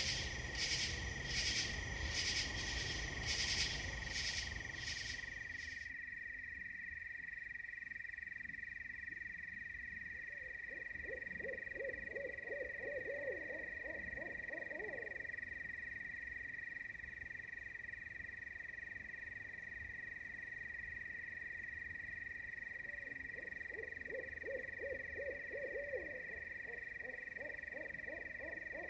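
Night chorus of insects: a steady high drone runs throughout, and a loud pulsing insect call, a little under two pulses a second, stops about five seconds in. Twice a frog gives a low trilling call lasting several seconds.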